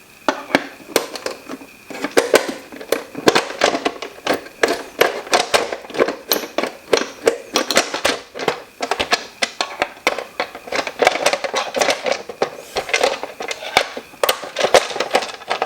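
Quick, irregular clicks and knocks of plastic humidifier parts being worked by hand, a stiff part of the tank being forced and wiggled loose.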